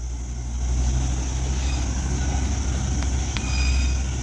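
Motorcycle on the move: a steady low engine and road rumble under a haze of wind noise on the microphone.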